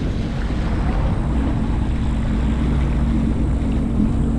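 Jet ski engine running at a steady cruising speed, an even drone with the hiss of water and air over it.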